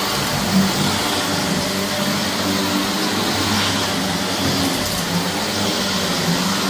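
Shark vacuum cleaner running steadily over carpet: an even motor rush with a low hum, and a brief sharper tick about half a second in.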